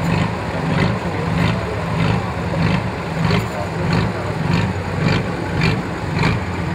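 Off-road trial truck's diesel engine running at low revs as the truck crawls along a steep sandy slope, with a regular pulse a little under twice a second.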